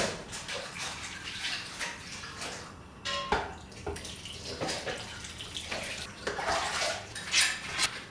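Thick stew sauce, potatoes and pork trotter pieces being ladled and poured into a ceramic baking dish: wet sloshing and splashing, with a few sharp clinks of the metal ladle about three seconds in.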